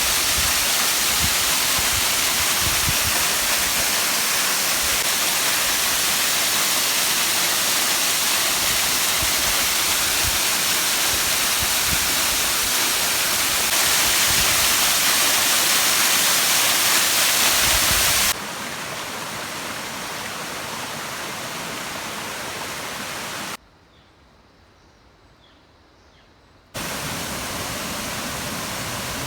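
Steady loud hiss of rushing water, with scattered low thumps in the first part. About 18 seconds in it cuts suddenly to a quieter hiss, drops to near silence for about three seconds, then comes back.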